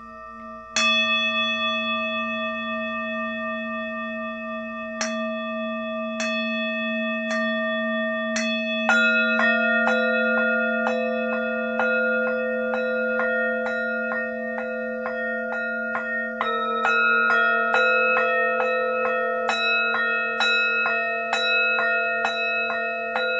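Singing bowls struck with a mallet, their long ringing tones layering over one another. A few spaced strikes come first, then from about nine seconds in the strikes come about twice a second, and new pitches join twice as further bowls are played.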